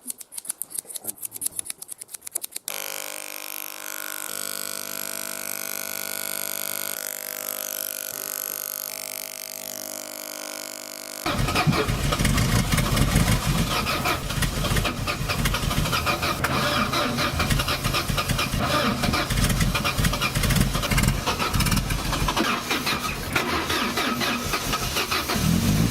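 Rapid clicking snips of a haircut, then the steady hum of an electric shaver for about eight seconds. About eleven seconds in, an Opel Astra's starter begins cranking the engine, loud and long, for about fifteen seconds as the car struggles to start.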